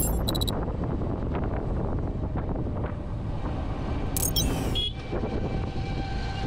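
Wind rushing over the microphone, mixed with the road and engine noise of a Suzuki Gixxer SF 155 single-cylinder motorcycle riding at highway speed. A brief sharp, high-pitched sound cuts in a little over four seconds in.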